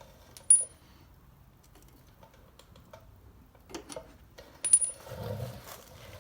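Small metal parts clinking: the steel pad pin of a Harley rear brake caliper being pulled out and handled. There are two sharp clinks with a brief high ring, about half a second in and near five seconds in, with fainter ticks between. A duller handling rustle follows the second clink.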